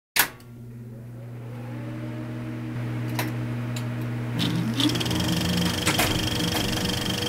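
Edited-in title sound effect: a sharp hit, then a steady low mechanical hum that slowly swells, with scattered clicks and a brief rising whine about four seconds in.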